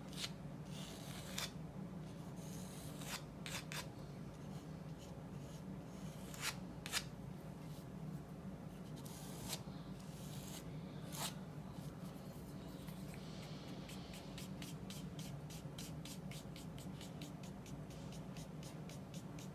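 Paintbrush scratching and scraping oil paint across multimedia paper in scattered strokes, turning about two-thirds of the way through into a quick, even run of short back-and-forth strokes, over a steady low hum.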